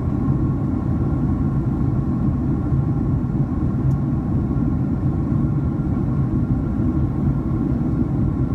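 Steady low rumble of cabin noise inside a Boeing 767-300 airliner in flight, with faint steady tones above it.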